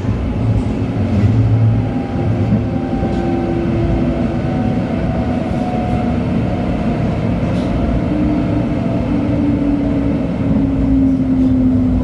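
LHB TW2000 light-rail car running along the track, with a steady running noise and a drive whine whose tones fall slowly in pitch.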